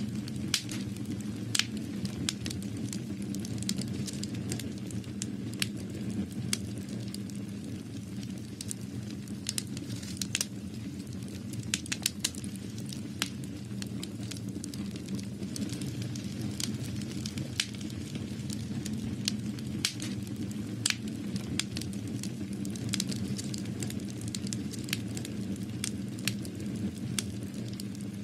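Continuous crackling: irregular sharp clicks and pops over a steady low rumble.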